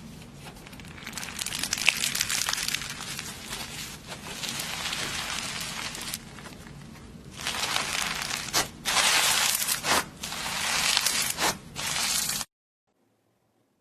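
Slime being squished and stretched close to the microphone, with crackling, crinkly sounds. It comes in louder surges in the second half and cuts off suddenly near the end.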